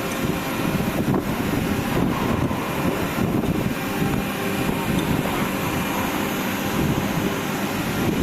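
Steady, unbroken machinery noise, most of it low in pitch, from ceramic pressing machinery running.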